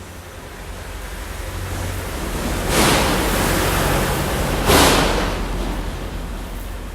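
A rushing-air noise that builds steadily louder, with two short, loud hissing blasts about three and five seconds in, over a steady low hum.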